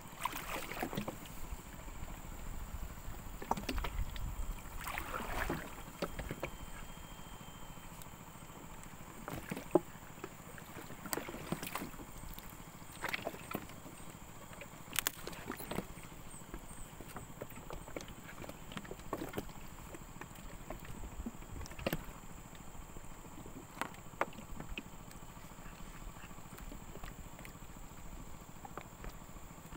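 Water movement: irregular sloshing swishes and scattered sharp clicks and knocks, with one louder sharp click about ten seconds in.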